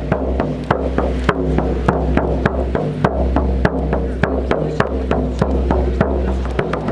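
Music with a steady percussive beat, about three sharp strikes a second, over a deep bass line.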